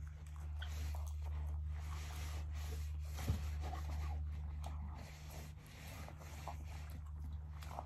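Two people chewing and eating pizza, with faint mouth sounds and small clicks over a steady low hum. A single sharp click a little over three seconds in is the loudest sound.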